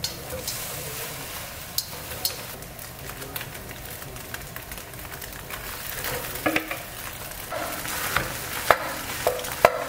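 Beaten egg sizzling in hot oil in a wok as it is stirred, then cooked rice is tipped in for egg fried rice. In the second half a wooden spatula scrapes and knocks against the wok, the knocks coming more often near the end.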